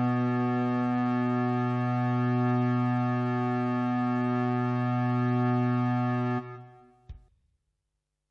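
Closing chord of an electronic music track: one steady held synth tone rich in overtones, which drops away quickly about six and a half seconds in, followed by a single short click.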